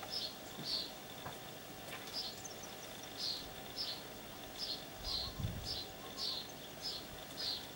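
A bird chirping over and over, a short high chirp roughly every half second, over a faint steady high hum. A soft low thump a little past five seconds in.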